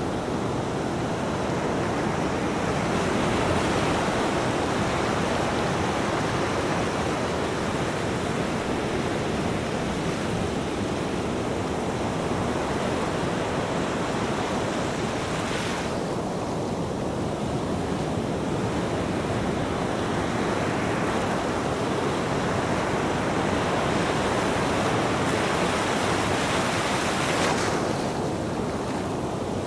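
Ocean waves washing onto a beach, a continuous rush of surf. The hissing wash swells and then drops away abruptly twice, about halfway through and near the end.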